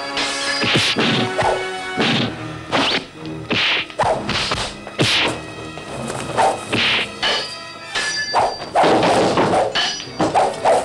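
Sword-fight sound effects: blades clashing and swishing, with thuds of blows landing, about one stroke a second, some leaving a short metallic ring.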